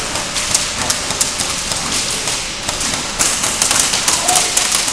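Scattered sharp taps and clacks of an airsoft firefight: BBs striking walls and cover, with shots coming at irregular moments rather than as a steady burst. The taps come thicker from about three seconds in.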